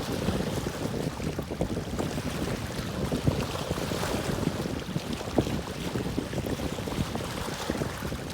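Wind buffeting the microphone over water lapping by the boats: a steady low rumble with small irregular splashes and knocks.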